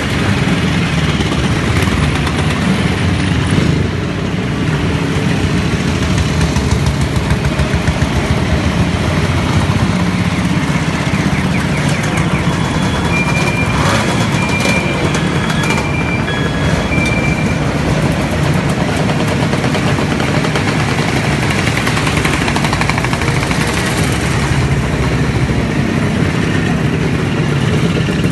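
A procession of classic motorcycles and Vespa scooters riding slowly past over cobblestones, many engines running together at low speed. About halfway through come four short high beeps.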